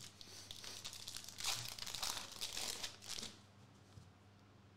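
Foil wrapper of a Panini Prizm Premier League soccer card pack crinkling as the cards are pulled out of it, in a run of rustling bursts that stops about three seconds in.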